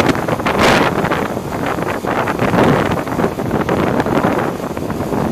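Gusty wind buffeting the microphone, rising and falling in waves, over the steady running of a 1999 International digger derrick truck working its Altec boom.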